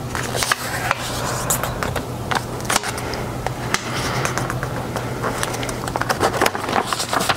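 A square sheet of origami paper rustling and crackling as hands fold it corner to corner and smooth the crease, with many small sharp crinkles and a denser patch of them near the end as the sheet is lifted and opened.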